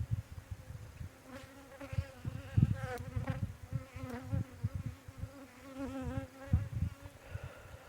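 Agitated honeybees buzzing close to the microphone, a hum that wavers in pitch and swells and fades as individual bees fly past, with scattered low bumps.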